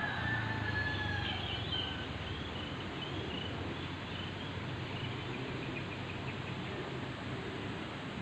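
Birds chirping over a steady outdoor hiss: a few clear, high calls in the first two seconds, then fainter short chirps repeating.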